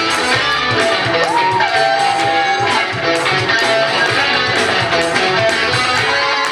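Music with guitar and a steady beat; about a second in, one note slides up and is held for about two seconds.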